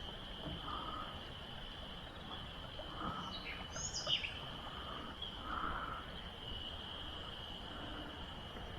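Creekside insect drone, a steady high-pitched tone, with a few quick bird chirps about halfway through and a soft lower call repeating every two to three seconds.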